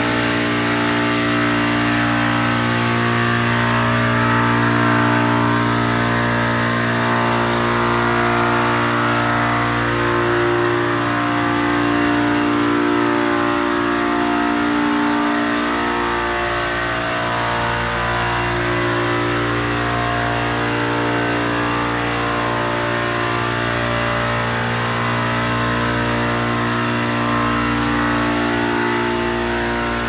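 Four scroll compressors of a Multistack modular water chiller running together at full stage. The sound is a steady hum and whine that slowly swells and fades in a wavering beat.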